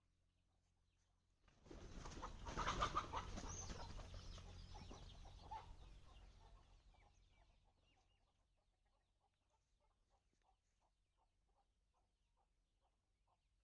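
Chickens clucking and squawking: a burst that starts suddenly about a second and a half in, is loudest soon after, and fades away over several seconds, leaving only faint, evenly spaced sounds.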